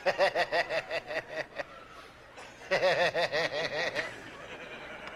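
A person laughing in two bouts of quick, repeated 'ha-ha-ha' pulses. The first bout is at the start and lasts about a second and a half. The second begins just before three seconds in and lasts about a second and a half.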